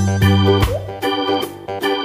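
Instrumental background music with held bass notes that change every half second or so, a melody and a regular beat.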